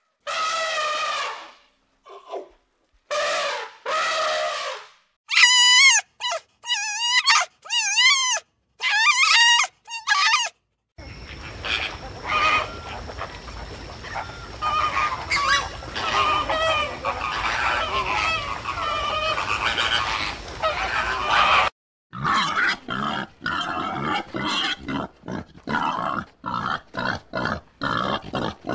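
A run of different animal calls: drawn-out pitched calls, then high wavering cries, then a dense stretch of many overlapping animal sounds. From about twenty-two seconds in comes a rapid series of short, evenly repeated grunts.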